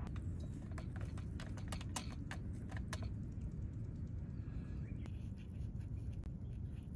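A quick run of light clicks and taps, about a dozen within the first three seconds, over a steady low rumble; a short rising squeak-like sound comes about five seconds in.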